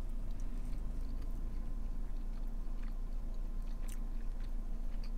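A person chewing a mouthful of chewy quesadilla, with small wet mouth clicks scattered through it, over a steady low hum in a car cabin.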